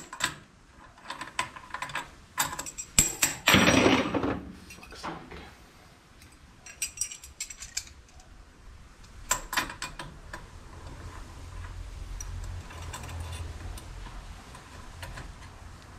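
Metal clinks and clatters of a collet, end mill and spanners being handled at a milling machine spindle, with a louder rattle about four seconds in. A low steady hum comes in during the second half.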